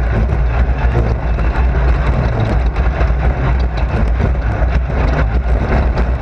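Race car engine running hard under load, heard from inside the car: a loud, steady low drone, with frequent small clicks and rattles over it.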